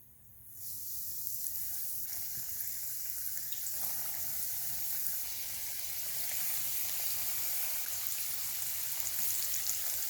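Food frying in hot oil: a steady sizzle with faint crackles, fading in about half a second in.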